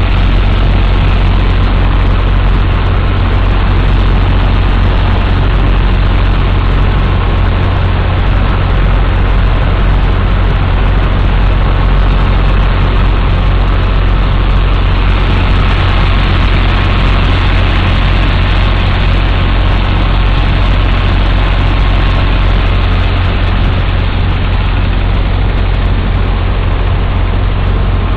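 Sand-pumping dredger at work: its engine and sand pump give a loud, deep, steady drone, with an even rushing noise over it from the sand-and-water slurry being pumped into the sand cabin.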